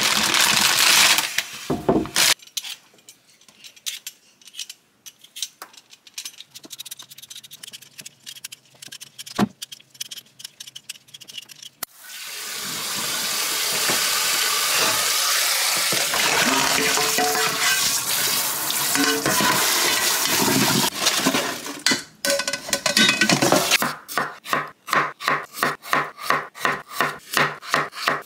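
Potatoes tumble out of a rustling plastic bag into a stainless-steel sink, followed by scattered light clicks. Tap water then runs steadily into a metal bowl of peeled potatoes for about ten seconds. Near the end a knife chops the potatoes into chunks on a wooden cutting board, in even strokes about four a second.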